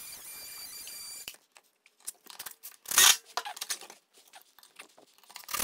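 Ridgid cordless oscillating multi-tool running at a high, steady pitch for about a second as it cuts off shims, then stopping. After it come scattered handling clicks and rustles, with a loud scraping rasp about three seconds in.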